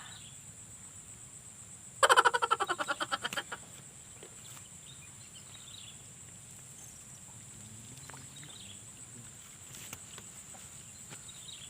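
A frog calling once: a loud, rapid pulsing rattle lasting about a second and a half that fades out. A steady high-pitched insect drone runs underneath.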